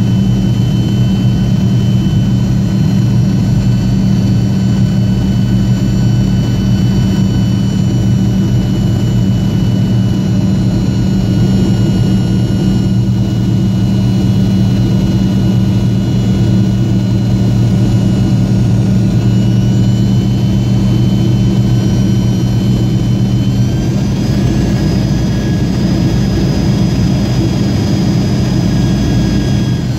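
Yak-42D's Lotarev D-36 turbofan heard loud from inside the cabin beside the engine: a steady low drone with a thin high whine, which steps up in pitch twice about two-thirds of the way through as the thrust changes.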